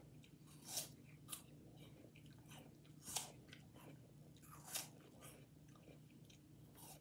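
Bites and chewing of crisp raw apple slices: about six short, sharp crunches at uneven intervals.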